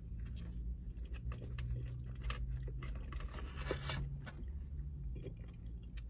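A person chewing a mouthful of soft casserole close to the microphone: irregular small wet mouth clicks and smacks, over a steady low hum.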